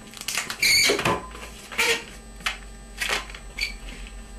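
Inflated white latex 260 modelling balloon being handled by hand: a string of short rubbery squeaks and rubs as fingers grip and slide along the latex.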